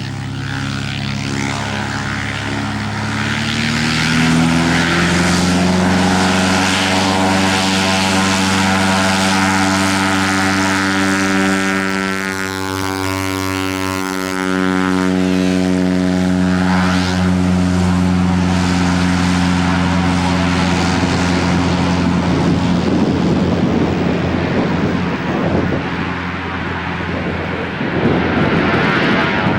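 Cessna Agwagon topdressing aircraft's piston engine and propeller drone. The pitch rises over the first few seconds, then holds steady. In the last third the drone grows weaker under a rushing noise.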